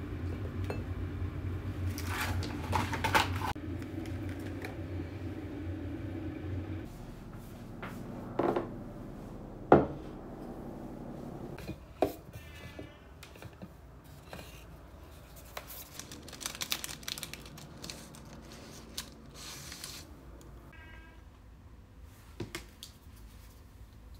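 A steady low hum that stops about seven seconds in, with scattered clinks and knocks of small objects being handled, like dishes or utensils.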